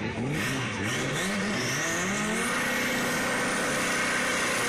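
Drag-race car engines revving in quick blips, pitch rising and falling, then from about two and a half seconds in one engine holds steady high revs with a faint high whine over it, as the turbo Ford Escort spins its rear tyres in a smoky burnout.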